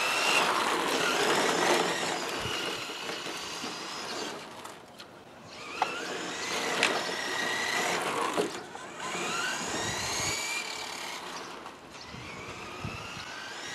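Tamiya Ford Escort RS 1/10-scale electric radio-controlled car driving on asphalt. Its electric motor whine rises in pitch again and again as it accelerates, over tyre noise, and there are a couple of sharp ticks about six to seven seconds in.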